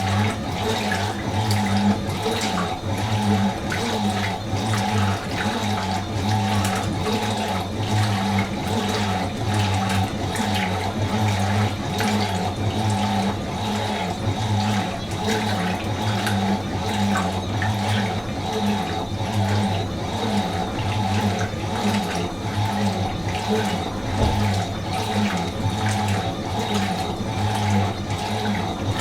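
Fisher & Paykel MW512 washing machine running: water rushing and sloshing inside the machine over a steady low hum.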